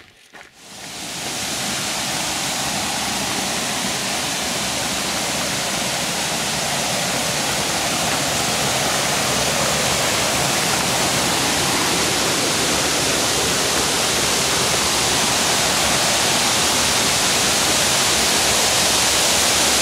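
Rushing water of a fast creek tumbling over rocks: a steady, loud rush that comes up within the first second or two and grows slightly louder.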